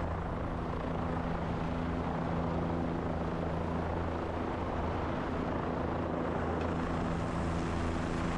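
Helicopter in flight, its engine and rotors making a steady drone with a low hum.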